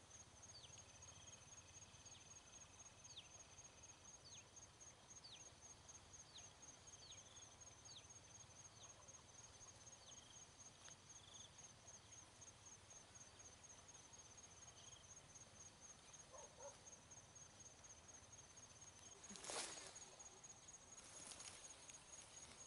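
Faint, steady pulsing trill of crickets, with a run of short high chirps falling in pitch about once a second in the first half. A brief rush of noise comes about twenty seconds in, and a weaker one a second later.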